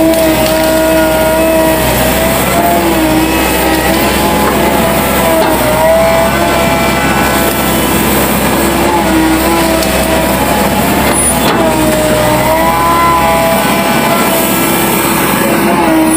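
Excavator's diesel engine running steadily under work, its pitch sagging and rising every few seconds.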